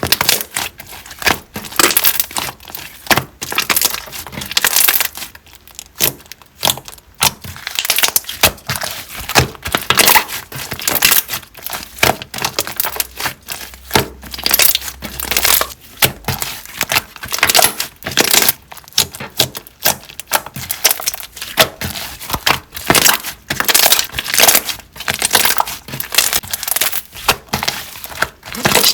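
Slime being squished and pressed by hand, giving a dense, irregular run of crackling, clicking pops.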